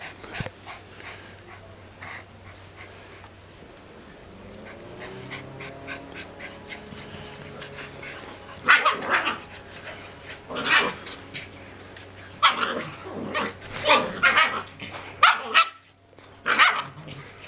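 Finnish Lapphunds barking in play: a quieter start, then sharp barks in quick clusters from about halfway through.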